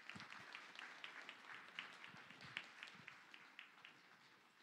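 Audience applauding, faint, the clapping thinning out and dying away near the end.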